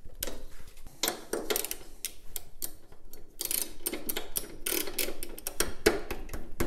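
Socket ratchet clicking in quick runs, with metal clinks of the socket, as a spark plug is worked loose on a Tecumseh VLV55 mower engine.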